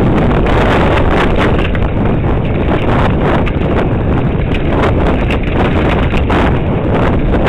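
Loud wind buffeting the microphone of a camera on a mountain bike during a fast downhill descent, with a continuous clatter of knocks and rattles as the bike and its tyres hit roots and bumps on the rough dirt trail.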